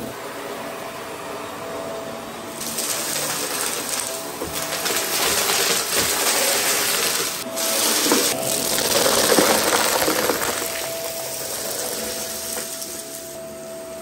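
Vax Mach Air Mk2 upright vacuum cleaner running with a steady whine while sucking up wood chips and bark from carpet, the debris rattling and crackling up through the cleaner head. The rattle swells about a third of the way in, dips briefly a couple of times, and eases off again near the end.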